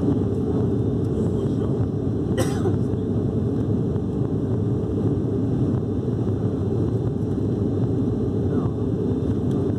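Steady low drone of the ATR 72-600's two Pratt & Whitney PW127 turboprop engines and propellers, heard inside the passenger cabin during the climb after takeoff. A single brief sharp sound cuts through about two and a half seconds in.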